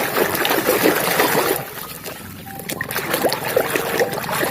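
Water splashing and sloshing as a muddy toy truck is washed. It is busy for the first second and a half, then quieter with scattered small splashes.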